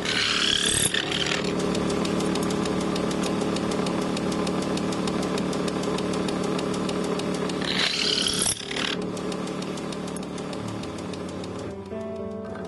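Old woodworking machine running with a steady hum and a fast, even rattle. A wooden ladder rung is pushed into its cutter twice, at the start and about eight seconds in, each time giving a short high-pitched cutting screech as the rung's end is shaped. Music comes in near the end.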